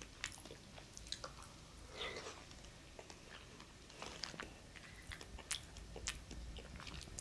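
Faint close-up eating sounds: scattered small mouth clicks and lip smacks as someone eats a soft, creamy dessert from a paper cup with a small spoon.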